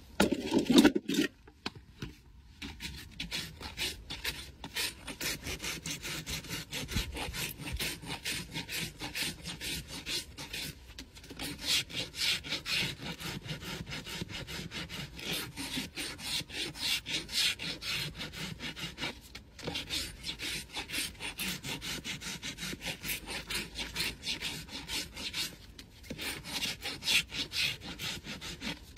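A farrier's rasp runs back and forth over a Shire horse's hoof wall, a steady run of quick scraping strokes. A couple of loud thumps come in the first two seconds.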